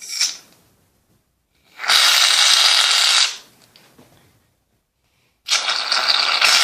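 Aerosol Barbasol shaving cream spraying out of its can in two steady hissing bursts. The first lasts about a second and a half, starting about two seconds in, and the second starts near the end.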